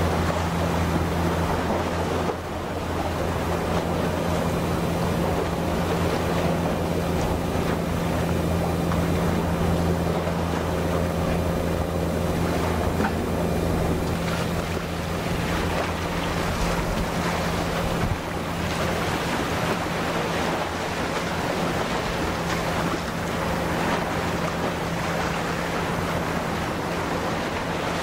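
Steady low machinery hum of the helicopter destroyer JS Izumo passing close by, under a constant hiss of wind and water. The deepest part of the hum fades about two-thirds of the way through.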